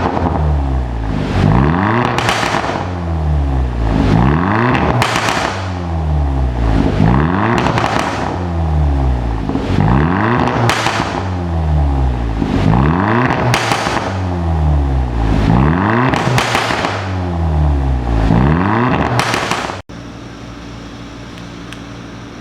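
Hyundai Veloster JS Turbo's turbocharged four-cylinder, through an aftermarket valved exhaust, being free-revved about seven times in a steady rhythm, each rev rising and falling with a crackle at the top. Near the end it drops to a quieter, steady idle.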